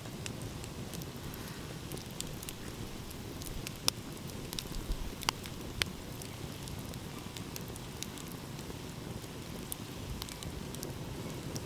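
Wood fire crackling, with scattered sharp pops, the loudest about four and six seconds in, over a steady low rumble of ocean waves.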